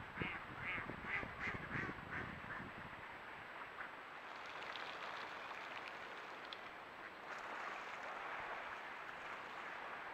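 Mallards quacking: a quick run of quacks, about three a second, in the first couple of seconds, then a steadier, busier background of duck calls.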